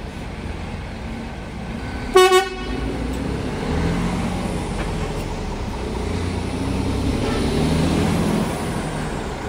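A vehicle horn gives a short double toot about two seconds in, the loudest sound. A coach's engine runs underneath and swells as the bus drives slowly past.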